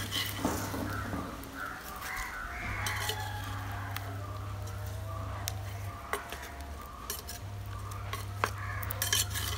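A metal spoon stirring thick fish-head curry in a pot, with a few sharp clicks of the spoon against the pot.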